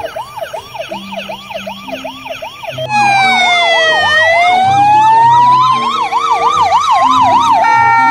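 Electronic siren of a toy ambulance, a quick repeating rising whoop about three times a second. About three seconds in it gives way to louder real ambulance sirens: one slow wail rising and falling with a fast warbling siren over it, two sirens at once.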